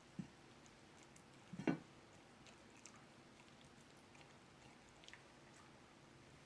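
Near silence: room tone, with a soft knock just after the start and a brief cluster of small knocks and rustles near the two-second mark.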